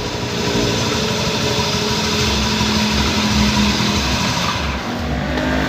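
Honda Scoopy scooter engine running steadily, with a rough, buzzing drone from a worn crankshaft bearing that the mechanic traces as the source of the noise.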